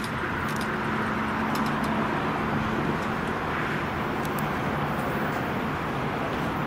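Pacific National NR class diesel-electric locomotives running as they haul an intermodal freight train toward the listener: a steady engine drone with a low hum that fades out about halfway through.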